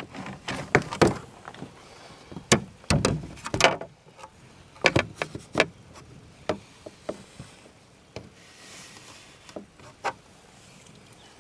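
Irregular clicks, knocks and low thumps of a caught bass and gear being handled against a plastic fishing kayak's hull and deck, busiest in the first six seconds and sparser after.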